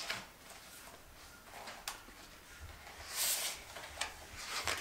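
Quiet room with a few soft clicks, and about three seconds in a brief paper rustle of a picture-book page being turned.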